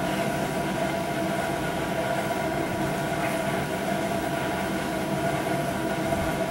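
Steady mechanical hum with a few held tones, even throughout.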